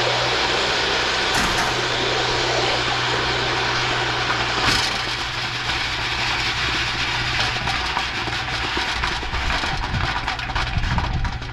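Burner of a metal-melting forge running with a loud, steady hiss over a low hum, with a couple of sharp clicks; it cuts off abruptly at the very end.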